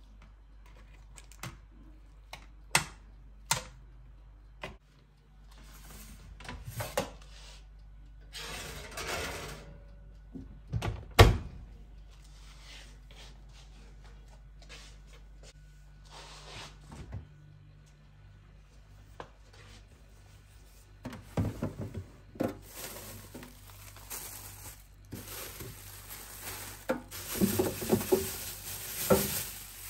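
Scattered knocks, clicks and thumps of objects being handled, with one loud knock about eleven seconds in and busier clattering near the end.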